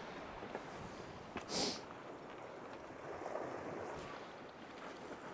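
Sea washing against shoreline rocks, with wind buffeting the microphone; a brief, louder hiss rises and falls about a second and a half in.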